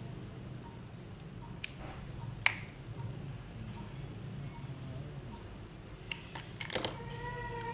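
Small hand cutters snipping and clicking on a white plastic strip: a few sharp isolated clicks, then a quick cluster of clicks near the end, over a low steady hum. Background music comes in at the very end.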